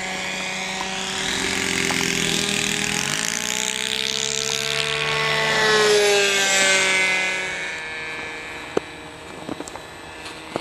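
Radio-controlled model float plane making a low flyby: its engine and propeller drone grows louder, peaks about six seconds in with the pitch dropping as it passes, then fades as it climbs away. A few sharp clicks near the end.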